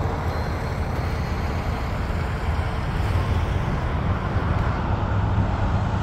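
John Deere 700K crawler dozer's diesel engine idling steadily, a low even rumble.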